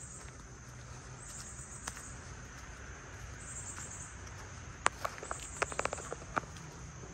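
Insects buzzing high-pitched in short bursts about every two seconds, with footsteps on a gravel path and a quick run of sharp clicks about five to six seconds in.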